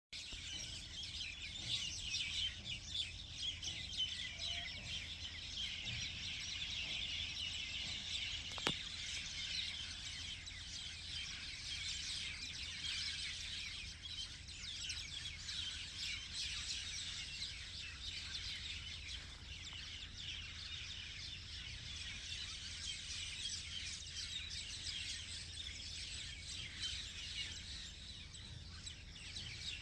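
Many small birds chirping and twittering together: a dense, continuous chorus of short high chirps.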